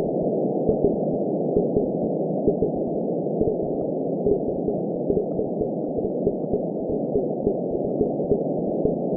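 Heartbeat and womb ambience: a slow, regular heartbeat, a bit over one beat a second, over a steady muffled whooshing.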